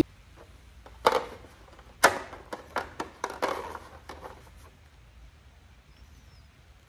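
Handling noise from the parts of a Mityvac hand vacuum pump kit: a run of sharp clicks and rustles, two loud ones about a second apart followed by several smaller ones that die away after about four and a half seconds.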